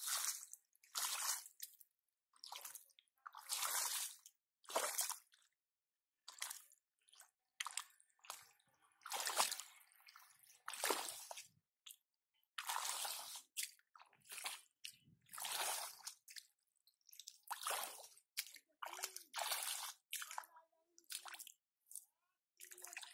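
Hands squelching and splashing in wet mud and shallow muddy water while groping for fish, a string of short, irregular squishes and splashes with brief silences between them.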